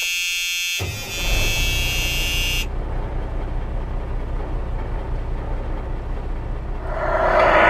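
A truck horn blasts at the start, then a diesel truck engine starts running with a steady low rumble, growing louder near the end.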